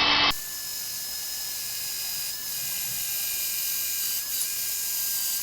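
Power drill enlarging a rivet hole to bolt size in the umbrella's metal frame. It is loud for a moment, then runs on as a steady high whine.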